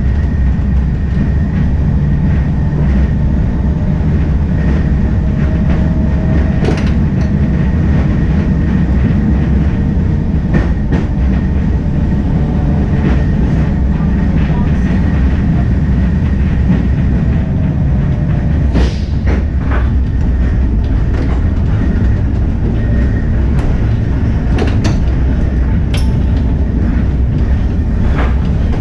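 Heritage electric tram running along street track, heard from inside the driver's cab. A steady low rumble of wheels and running gear, with short clicks and knocks now and then as the wheels run over the rails.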